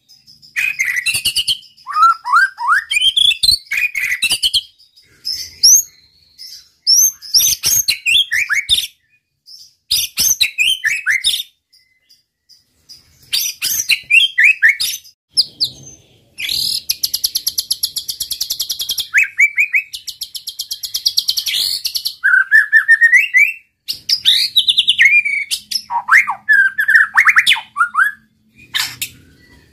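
A white-rumped shama (murai batu) singing a varied song of loud, clear whistled phrases that slide up and down, broken by short pauses. About halfway through comes a long run of rapid, buzzy repeated notes lasting several seconds.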